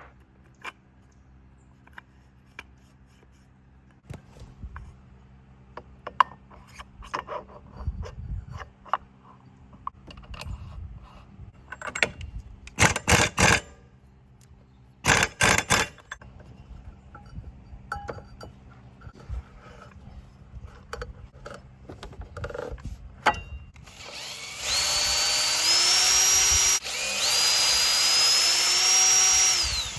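Clicks and clanks of tools and parts, two short loud bursts about halfway through, then a power tool runs in two spells of about two and a half seconds near the end, its whine rising in pitch as it comes up to speed.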